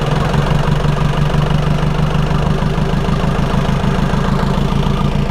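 Chevrolet Tavera's turbo-diesel engine idling steadily on its first run after the turbocharger was refitted.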